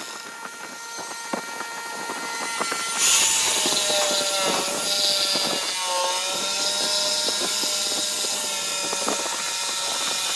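Corded jigsaw cutting a curve through a thick wooden tabletop: a steady motor whine with the blade rasping through the wood. It gets louder about three seconds in, and the pitch dips briefly a couple of times.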